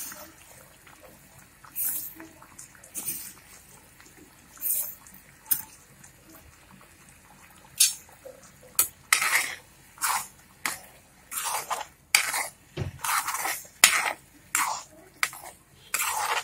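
A spoon scraping and knocking against a kadhai while stirring a thick chutney. A few isolated knocks at first, then from about halfway through quick, repeated strokes.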